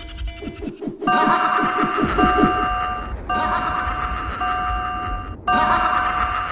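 Electronic chime sounding a two-note pattern three times, each pair lasting about two seconds with a short gap between. It is preceded by a quick run of short, falling low tones, about eight a second, in the first two seconds.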